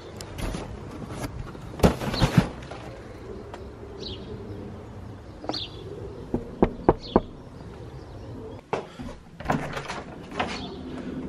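Knuckles rap three times on a wooden door, sharp knocks about a third of a second apart, coming a few seconds after a group of loud thumps. A lever door handle then clicks and the door opens. Short bird chirps come and go faintly.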